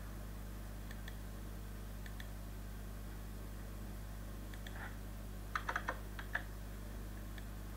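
Computer keyboard typing: a short run of quick keystrokes about five and a half to six and a half seconds in, with a couple of faint clicks earlier, over a steady low hum.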